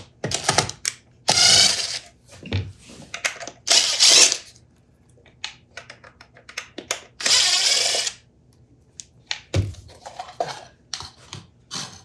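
Cordless drill-driver backing screws out of a wooden tool base in several short runs of under a second each, with clicks and knocks of handling between the runs.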